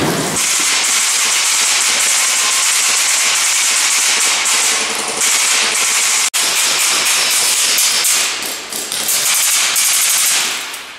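Fire extinguisher discharging in a long, loud hiss that drops out for an instant about six seconds in and dies away near the end.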